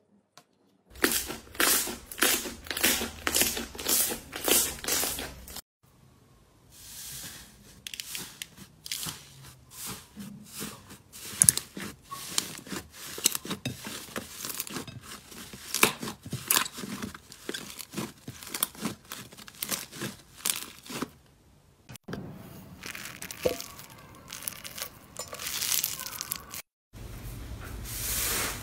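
Hands squishing, stretching and kneading slime: a dense, irregular run of sticky pops, crackles and clicks, stopping briefly a few times between clips.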